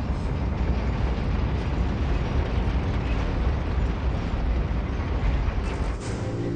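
Film sound effects: a deep, continuous mechanical rumble of giant machinery, with a rough noisy texture over it. Music begins to come in near the end.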